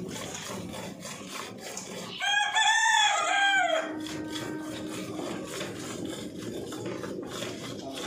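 A rooster crows once, about two seconds in, a single call lasting under two seconds that rises and then falls. Underneath, the short repeated squirts of a cow being hand-milked into a steel bucket.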